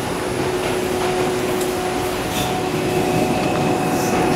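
Bombardier-built R142 subway car in motion, heard from inside: a steady rumble of wheels on rail with a steady electric hum from the propulsion.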